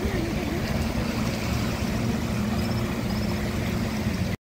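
Motorboat engines running steadily, a low even drone.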